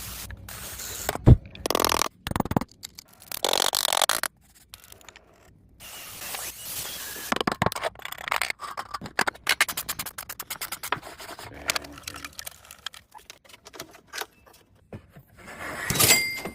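Hand tool work on wood: bursts of scraping, then long runs of rapid clicking and ticking.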